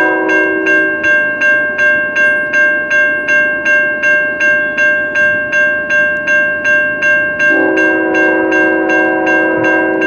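A grade-crossing warning bell rings steadily, about two to three strikes a second, as the crossing gates come down. A diesel locomotive's air horn blows a chord for the crossing at the start, stops about a second in, and sounds again from about seven and a half seconds on.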